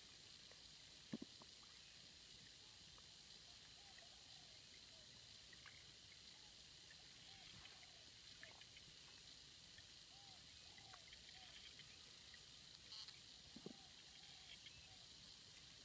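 Near silence: faint steady outdoor hiss, with a few faint short arching calls every few seconds and two small knocks, about a second in and near the end.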